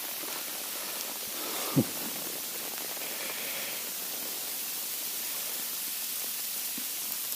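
Steady hiss of rain mixed with wet snow falling, with one short, faint low sound a little under two seconds in.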